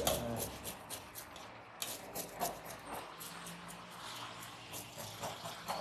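Hands and a blade scraping and rubbing the skin of a black pomfret on a steel cutting table: a run of irregular short scrapes and clicks, busiest at the start and again near the end.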